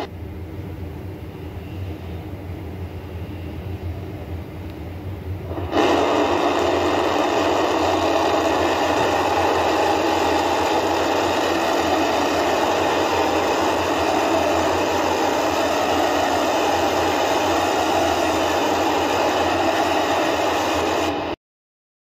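Starship prototype's Raptor rocket engines: a moderate distant rumble, then about six seconds in a sudden, much louder steady rush as the engines fire for the landing burn. It cuts off abruptly about a second before the end.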